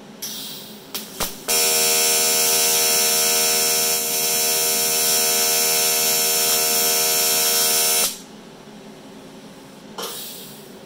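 AC TIG welding arc on aluminium: a loud, steady buzz that starts about a second and a half in and cuts off suddenly about eight seconds in, with a couple of clicks just before it starts. A short hiss comes shortly before the arc and again near the end.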